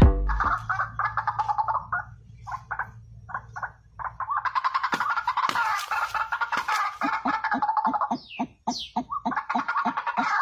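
A bird calling in runs of rapid, chattering pulses, broken by short pauses.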